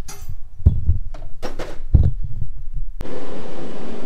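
Scattered metal clinks and knocks of tools at work on an engine, then a sudden switch about three seconds in to the steady loud rush of a shop heater blowing.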